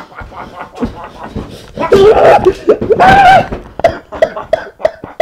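A person's voice crying out loudly twice, about two and three seconds in, each cry bending in pitch, amid a run of short sharp grunt-like pulses, several a second.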